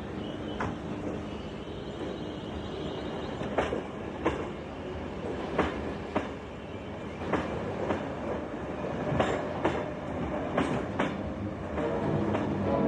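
Passenger train pulling out along a platform: a steady rumble with the wheels clacking over rail joints in pairs, the pairs coming closer together as it gathers speed. Music comes in near the end.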